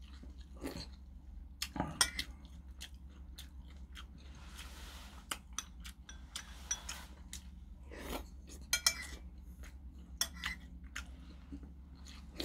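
A metal spoon clinks and scrapes now and then against ceramic bowls as stew is spooned up and eaten, with quiet chewing in between.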